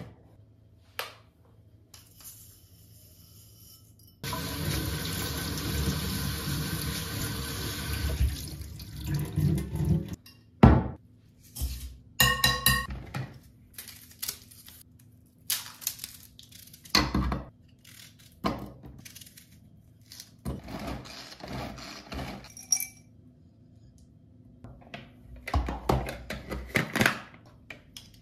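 Tap water running steadily for about six seconds while rice is rinsed, then glass and utensil clinks and knocks, one of them ringing like glass. Near the end a small food chopper works through a red onion in a quick run of short strokes.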